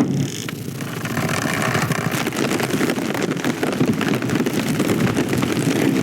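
Layered film sound effects: a dense, steady rushing and rumbling noise with a rapid, irregular flutter running through it.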